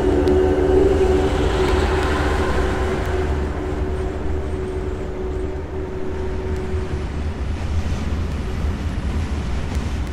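Ambient soundtrack drone: a steady low rumble under sustained held tones that fade out about seven seconds in, with a hiss swelling and dying away in the first few seconds.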